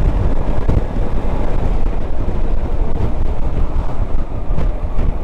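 Wind noise on the microphone mixed with a Yamaha XMAX 300 scooter riding at steady cruising speed: a loud, even low-pitched din with no breaks.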